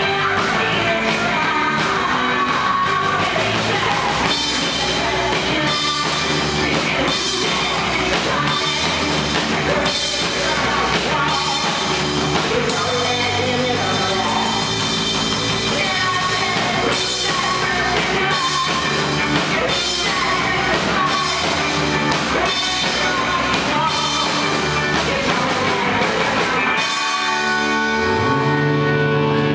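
Live rock band playing: drum kit, electric and acoustic guitars, with singing. Near the end the drums stop and the song finishes on a held, ringing chord.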